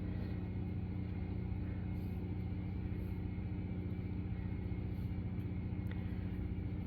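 Steady low droning hum, with a few faint light ticks.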